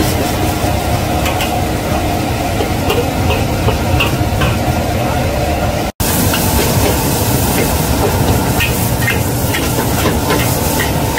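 Ground pork sizzling in a wok as a metal spatula scrapes and knocks against the pan, breaking up and stir-frying the seared meat, over the steady rumble of a gas burner. The sound drops out for an instant about halfway through.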